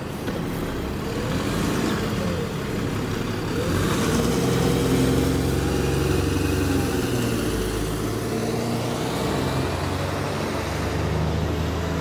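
Alexander Dennis Enviro400 double-decker bus on a Dennis Trident chassis pulling away and driving past, its diesel engine accelerating, the engine note shifting up and down in pitch. It is loudest mid-way through as it passes and eases off toward the end as it leaves.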